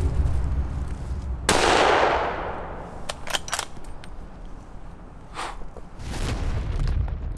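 A loud gunshot about a second and a half in, its echo dying away over about a second, followed by several sharp cracks and a couple of softer bangs over a low rumble.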